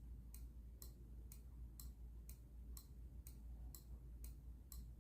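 Faint, steady ticking, about two ticks a second, over a low hum.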